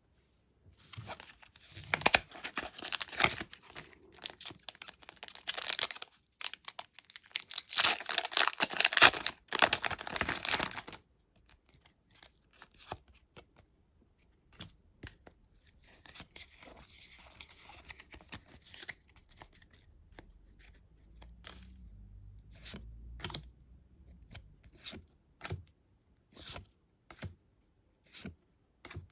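Foil booster pack wrapper crinkling and tearing open in two loud stretches, then softer rustling and a run of short flicks, about one a second, as the trading cards are handled one by one.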